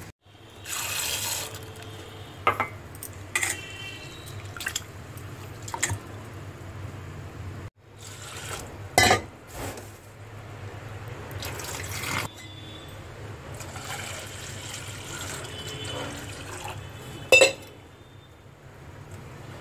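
Water pouring and sloshing over grain being rinsed in a steel pot, with several sharp clinks of steel utensils that ring briefly.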